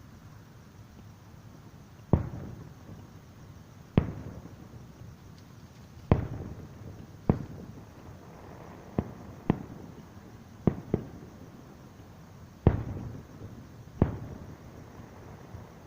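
Aerial firework shells bursting, about ten sharp booms at uneven intervals, each trailing off in a rolling echo. Two pairs of bangs land close together, one just after the middle and one a little later.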